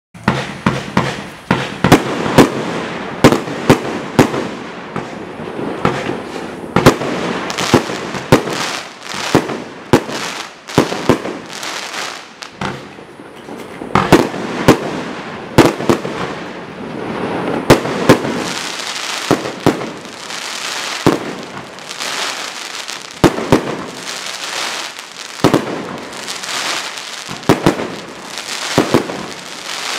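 Piroff Kyoto 49-shot fireworks cake (battery) firing: a steady run of sharp shots, one or two a second, with a crackling hiss from the bursting stars between them.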